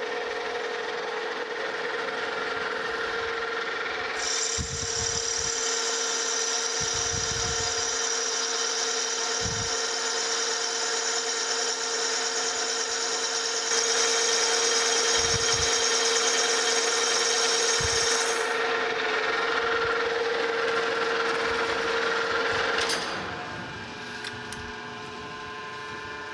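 Metal lathe running steadily, turning a bronze bushing on an expanding mandrel during a cut that takes 60 thousandths off the diameter. A high cutting hiss from the tool on the bronze comes in about four seconds in and stops about eighteen seconds in, with a few low knocks along the way. The lathe winds down near the end.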